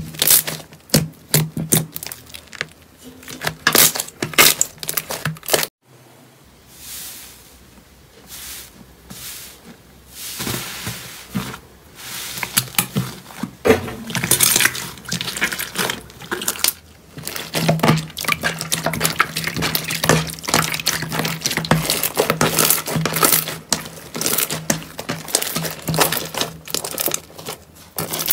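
Hands squeezing, folding and kneading slime: a run of wet, sticky clicks and crackles as trapped air pops in it. It drops to a quieter stretch about six seconds in, then the crackling picks up again.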